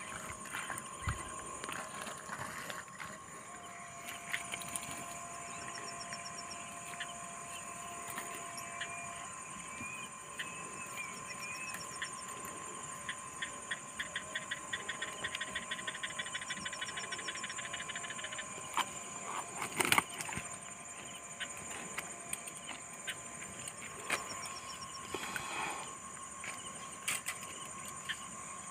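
Insects calling steadily with a continuous high drone, with a rapid pulsing trill in the middle. A few sharp clicks come through, the loudest about two-thirds of the way in.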